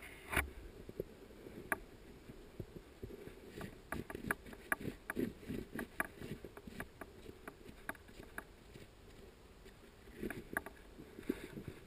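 Faint, irregular knocks, crunches and scrapes as a fallen dirt bike is handled in snow, with the engine not running.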